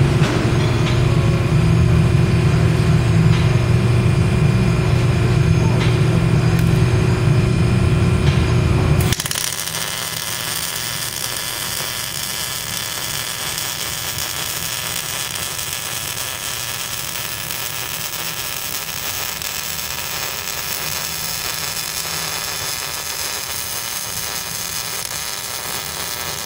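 A steady low hum for about the first nine seconds, then it stops abruptly and a wire-feed (MIG) welding arc crackles and hisses steadily on steel.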